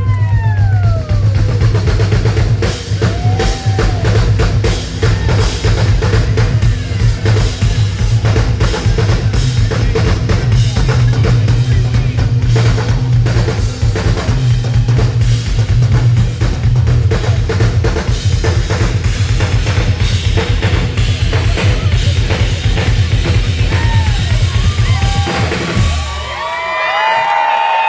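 Live rock band playing with a steady, driving drum-kit beat of kick and snare; the music stops about 26 seconds in and the crowd cheers and whistles.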